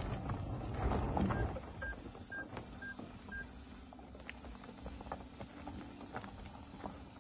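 Electric SUV's electronic warning chime: five short beeps at one pitch, about two a second. Before them, in the first second or so, its tyres crunch over dirt and gravel.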